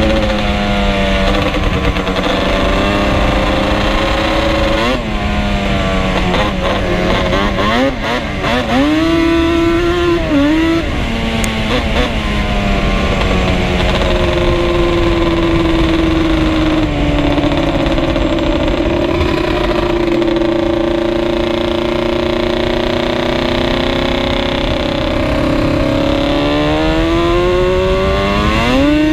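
Two-stroke ATV engine under way on a trail, its pitch rising and falling with the throttle. There is a quick blip about five seconds in, several rapid rises and drops a few seconds later, a long steady stretch, and a climb in revs near the end.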